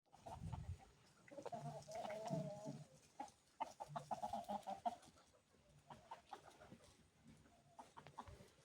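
Chickens clucking, a run of short repeated calls that is busiest in the first half and thins out after about five seconds.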